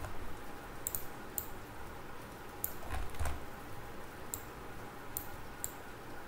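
Scattered sharp clicks of a computer mouse, about seven in all, with a soft low thump about three seconds in, over a faint steady hum.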